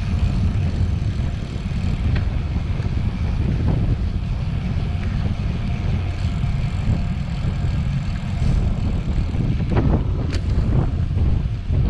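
Wind buffeting the microphone of a camera riding along on a moving bicycle, a steady low rumble mixed with tyre noise on the road. A few short knocks come about ten seconds in.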